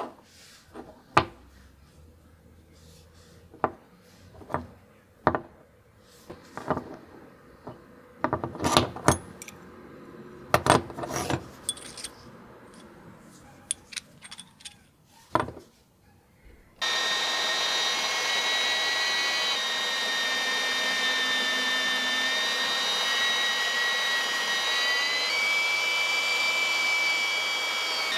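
Small flat steel vise parts handled and set down on a wooden workbench, giving scattered clicks, knocks and light scrapes. About two-thirds of the way through it cuts abruptly to an electric belt sander running loud and steady with a whine while a small steel part is ground flat against the belt; the whine steps up in pitch a few seconds before the end.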